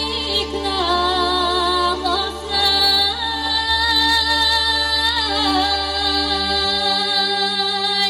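Woman singing a Bulgarian folk song through a microphone and loudspeakers, holding long notes with a wavering vibrato, over a live band's accompaniment with a steady bass line.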